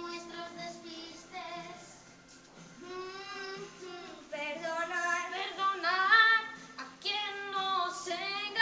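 A child singing a Christmas song into a handheld microphone, with musical accompaniment; the sung phrases grow louder in the second half.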